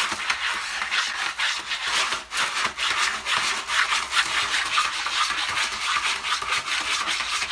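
Continuous dry scratching or rasping: many quick, irregular strokes, all hiss and no tone.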